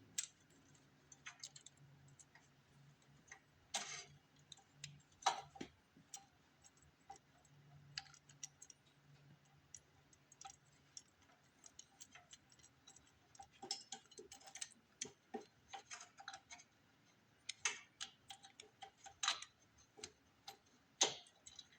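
Faint, irregular light clicks and taps of small metal parts being handled: bolts and carburetor mounting parts being lined up and fitted by hand.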